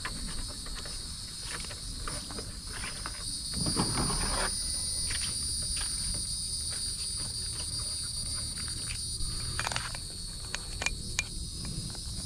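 Insects chirring steadily, a continuous high-pitched drone at two pitches, with scattered small clicks and a short rustle about four seconds in.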